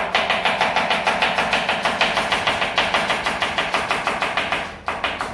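Chef's knife rapidly julienning cabbage on a plastic cutting board, a quick even chopping of about seven knife strikes a second. It breaks off briefly near the end, then picks up again.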